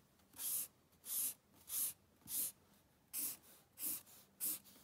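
Felt-tip marker drawing straight lines on paper: seven short, even strokes, roughly one and a half a second, as the lines of a table grid are ruled in.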